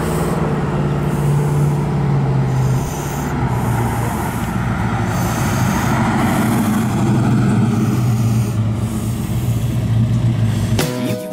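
1973 Dodge Charger SE's 400 cubic-inch V8 with headers and Flowmaster dual exhaust, driving past: a steady exhaust note that drops in pitch and level about three seconds in, then holds as the car passes close by and pulls away. Music starts right at the end.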